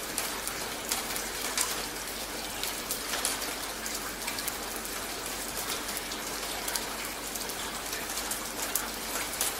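Steady rain falling on wet pavement: an even hiss with many scattered drop taps.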